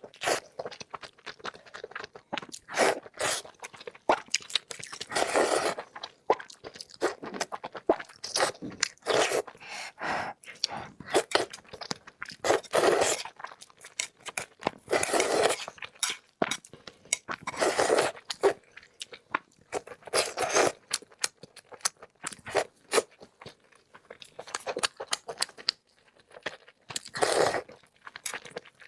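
A person chewing and crunching food close to the microphone: repeated wet, crunchy bites and chews in irregular clusters.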